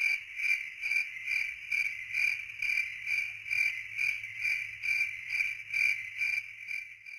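Cricket chirping in a steady, even rhythm of about two high chirps a second.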